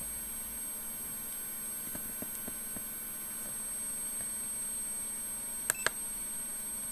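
Steady high-pitched electronic whine from several tones, over a low hum and faint hiss, with two quick clicks close together near the end.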